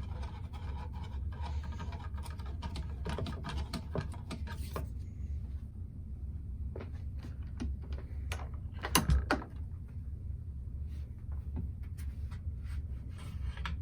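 Long-handled screwdriver backing out the stock bolt of a wooden shotgun stock, with irregular small clicks and scrapes of metal on wood and metal, thick for the first few seconds and sparser after. A single louder knock comes about nine seconds in.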